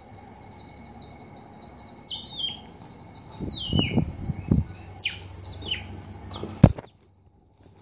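Young otter chirping: runs of short, high-pitched calls, each one falling in pitch, coming in quick bursts. A few dull thumps are mixed in, and the sound cuts off suddenly near the end.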